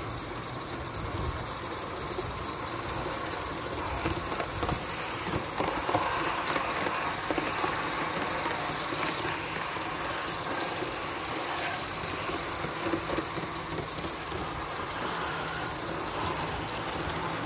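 Live-steam model locomotive, a Roundhouse Taliesin, standing in steam with a steady hiss of escaping steam.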